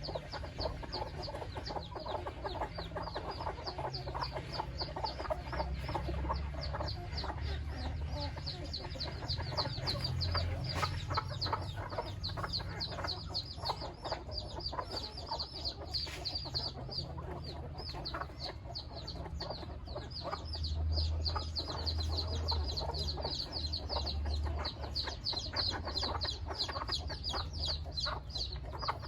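A flock of chickens clucking, with a dense, continuous stream of short, high peeping calls over a low rumble.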